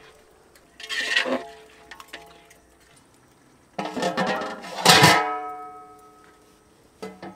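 A metal ladle scraping in a large metal cooking pot, then the pot's wide metal lid clattering into place to close the biryani for dum cooking; the lid rings and fades over about a second and a half.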